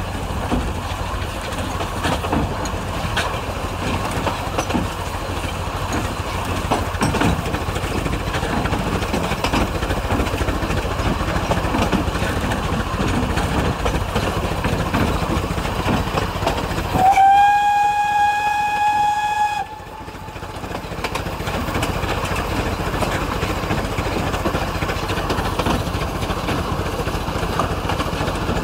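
Vale of Rheidol narrow-gauge steam train on the move, with a steady running noise and scattered clicks of the wheels on the rails. About two thirds of the way through, the locomotive's steam whistle sounds one long note of about two and a half seconds. The note rises briefly at the start and cuts off suddenly.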